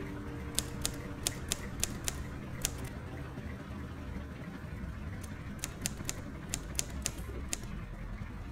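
Plains zebra cropping dry grass: a quick run of sharp snaps, a pause of a few seconds, then a second run, over a low steady rumble.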